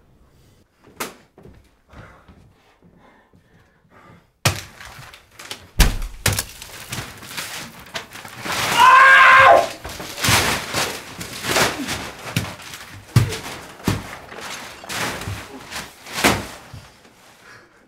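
Large paper drawings being torn off a wall and ripped, in a rapid run of thuds, bangs and paper rustles that starts about four seconds in. A man yells loudly for about a second, some nine seconds in.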